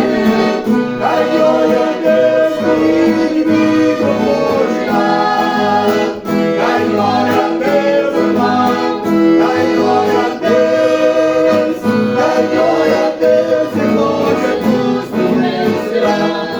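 Accordion playing a gospel hymn with guitar accompaniment and singing.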